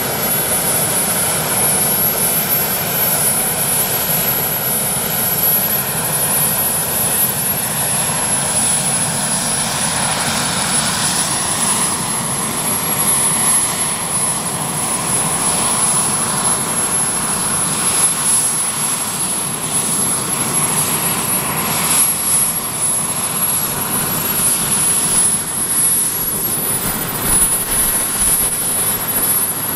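Westland Sea King helicopter running on the ground with its main rotor turning: a steady rush of rotor and twin-turboshaft noise with a high, thin turbine whistle that wavers slightly.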